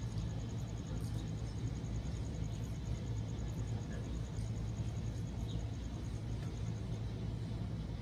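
Steady low outdoor background rumble and hum, like distant traffic or machinery, with a faint rapid high ticking over it.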